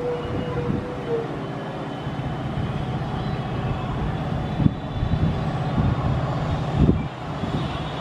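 An EMD WDP4 diesel locomotive's two-stroke engine running steadily at full notch as the train approaches, heard as a low rumble. The end of a horn note fades about a second in, and two brief thumps come about five and seven seconds in.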